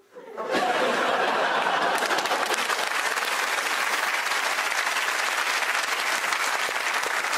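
Studio audience applauding steadily, breaking out about half a second in after a brief hush.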